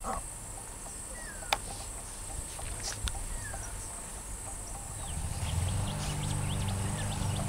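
Low steady drone of a Pacific National 81 class diesel locomotive's EMD V16 two-stroke engine, growing louder from about five seconds in as the train approaches. Birds chirp throughout, and a single sharp click comes about a second and a half in.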